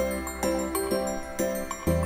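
Instrumental background music: a bouncy melody of short notes over a held bass note, which changes near the end.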